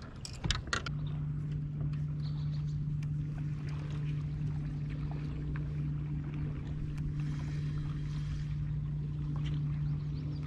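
Bow-mounted electric trolling motor running with a steady hum, starting about a second in after a few knocks on the boat.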